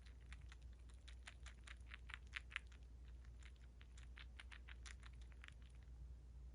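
Siberian chipmunk chewing food: a faint run of quick, crisp crunching clicks, about five a second, with a short pause in the middle, stopping about six seconds in.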